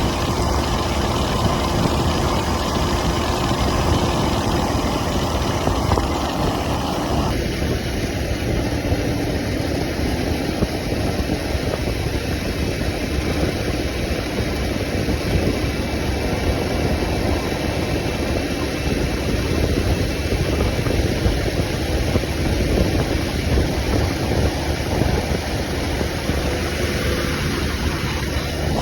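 Motorcycle engine running steadily, low and even with no revving, with street noise around it; about seven seconds in the higher hiss suddenly thins out while the engine carries on.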